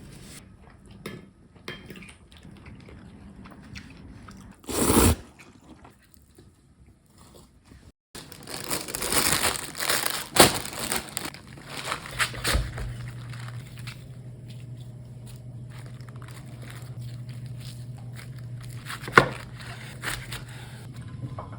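Kitchen handling sounds: crinkling and rustling with scattered knocks and clicks, and a loud burst of noise about five seconds in. From about twelve seconds in a steady low hum runs under the handling, with one sharp knock near the end.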